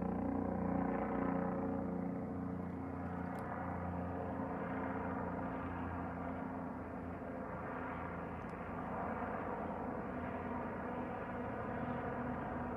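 A steady engine drone with a hum of several pitched tones, pulsing briefly during the first two seconds and then running evenly.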